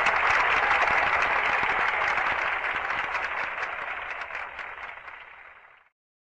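Crowd applauding, fading away so that single claps stand out, then stopping abruptly near the end.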